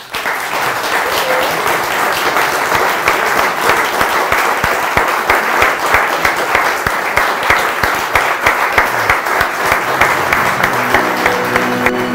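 A studio audience applauding: steady, dense hand-clapping that breaks out suddenly and holds. Near the end, music starts up underneath the clapping.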